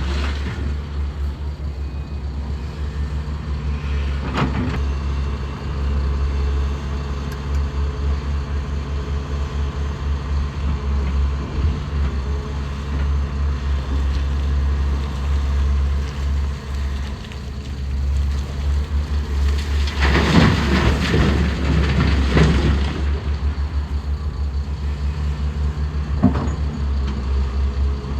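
Heavy diesel engines of an excavator and dump truck running steadily with a deep, pulsing drone. Bursts of noise come in over the engines: a short one about four seconds in, a longer one around twenty seconds in and another short one near the end.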